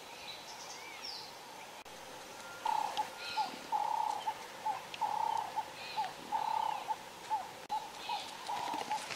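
Outdoor animal calls: faint high bird chirps at first, then from about three seconds in a rhythmic series of mellow hooting notes, some long and some short, repeating without pause.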